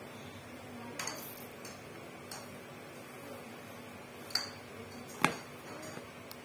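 Small cardboard parcel being handled and turned over in the hands: a few light taps and knocks, the loudest a sharp knock about five seconds in.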